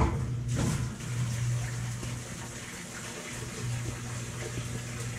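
Speed Queen TR7 top-load washing machine filling at the start of an empty cycle: water rushing into the drum over a steady low hum.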